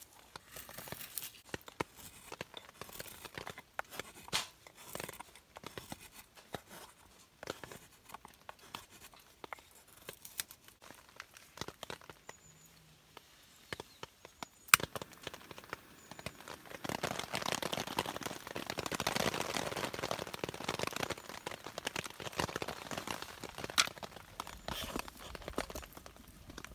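Irregular crinkling and rustling with scattered sharp clicks, thickening into a denser stretch of rustling past the middle.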